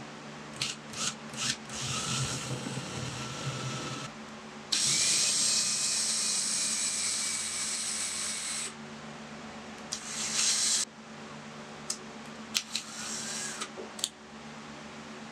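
Ryobi handheld power drill with a gold twist bit boring into wood, a round wooden base and then the end of a wooden dowel: a few short trigger blips, then longer runs with a steady motor whine, the longest and loudest about four seconds near the middle, and quick blips again near the end, one rising in pitch as it spins up.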